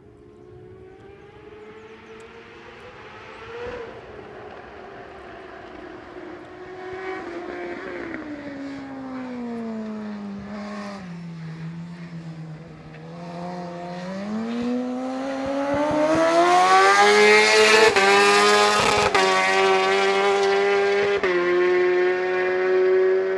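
Suzuki GSX-R1000 superbike's inline-four with a Yoshimura exhaust, lapping the circuit at a distance, its note echoing off the surrounding hills. The pitch sinks as it slows, then climbs as it accelerates and comes much closer and louder in the second half, with quick gear changes near the end.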